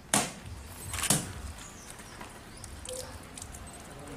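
Two sharp knocks about a second apart, the first the louder, followed by a few faint clicks over a low outdoor background.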